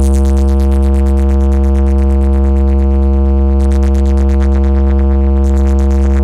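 Competition DJ speaker boxes playing a 'vibration' bass test: one deep synthesized bass note held steady and very loud, with its overtones, with no beat or change.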